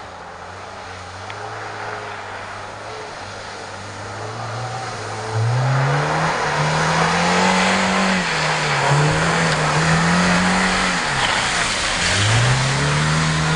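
Lada Niva engine revving hard as the car drives through deep mud, growing louder as it approaches and passes close by. The revs jump about five seconds in, then dip and climb again twice as the car works through the ruts.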